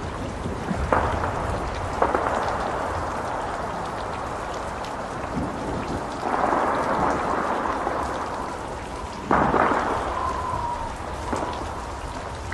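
A steady rushing hiss with several sudden deep booms that rumble and fade, the loudest about nine seconds in, followed by a faint brief whistle.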